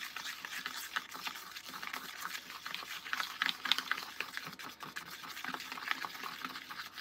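Small plastic spoon stirring cheese powder and water into a wet paste in a plastic bowl: quick, irregular wet scrapes and small clicks.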